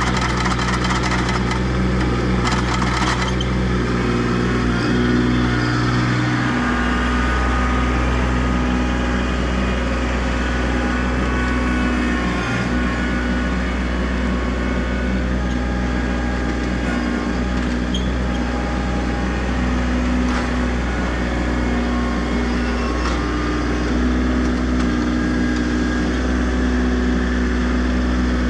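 Kubota B2650 compact tractor's three-cylinder diesel engine running steadily while it works the BH77 backhoe pulling stumps, with a few clattering knocks in the first three seconds.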